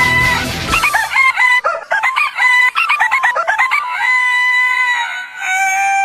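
Rooster crows edited into a tune: a run of short pitched notes, then a long held crow and a final crow that falls in pitch. Heavy metal backing music drops out about a second in.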